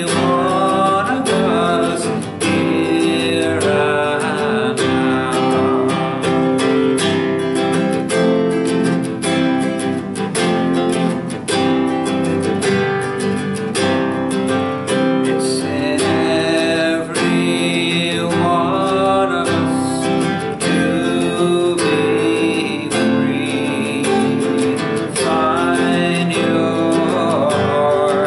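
A man singing to his own strummed classical (nylon-string) guitar, the voice coming in phrases over the steady chords.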